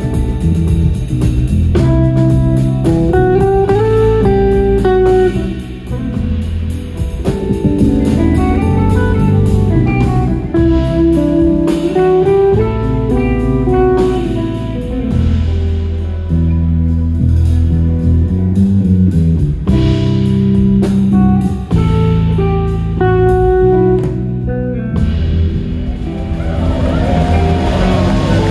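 Live rock band playing an instrumental: electric guitar carrying the melody over electric bass and drum kit, heard from the audience. Near the end a wash of hissy noise swells up under the band.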